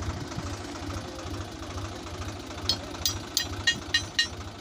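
Swaraj 735 XT tractor's diesel engine idling with a steady low pulse. Just past the middle comes a quick run of about six sharp metallic clinks, the tow chain and hitch rattling as the tow hook-up is worked at the tractor's rear drawbar.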